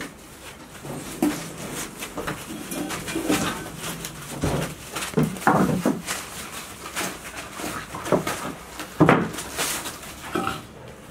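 Golden retriever puppies play-fighting: short, irregular dog vocalisations mixed with scuffling over a floor littered with torn newspaper, loudest about nine seconds in.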